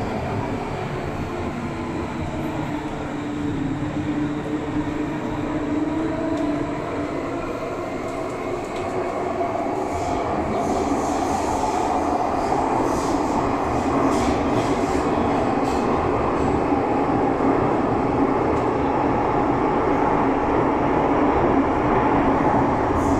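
MTR M-Train electric multiple unit running between stations, heard inside the car by the doors: a steady rumble of wheels on rail under a running motor tone. The tone climbs slowly in pitch through the middle and the noise grows a little louder towards the end.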